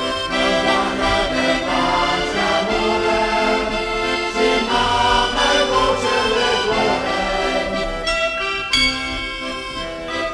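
Traditional folk music: an accordion playing together with ringing bells in a bell concert.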